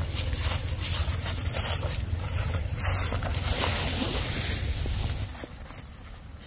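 Wind rumbling on the microphone, with a crackling rustle of leafy plant stalks; the rumble drops away about five seconds in.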